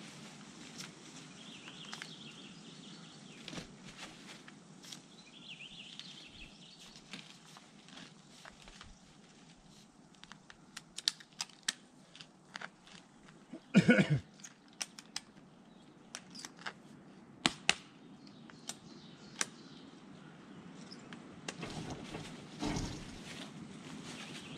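Scattered light clicks and knocks from a white plastic pipe and its metal bracket being handled and fitted against a tree trunk, with one louder knock a little past halfway.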